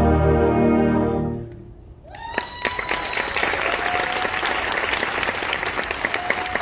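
Full concert band holds its final chord, brass and low winds together, and releases it about a second and a half in. After a brief hush the audience breaks into applause, with a few voices calling out over it.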